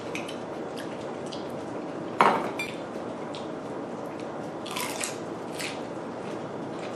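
Eating sounds at a table: utensils clicking and tapping against a dish, a few separate strikes with the loudest about two seconds in, over a steady background hiss.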